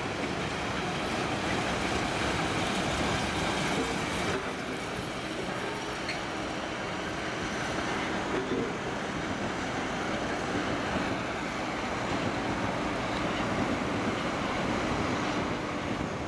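Freight train of gas tank wagons rolling past, a steady rolling noise of steel wheels on rails.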